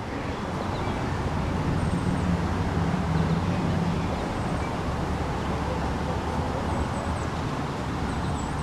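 Steady outdoor rumble and hiss heard from a moving chairlift, like wind and distant road traffic, swelling slightly a couple of seconds in. A few faint, short high chirps come and go.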